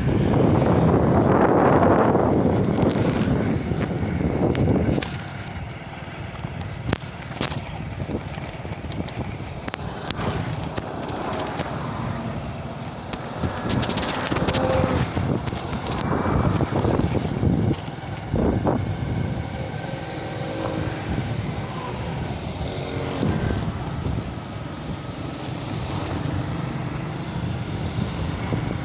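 Riding a small motorcycle: wind rushing over the phone's microphone over the engine and road noise, loudest for about the first five seconds and steadier after. Scattered short knocks and clicks come through along the way.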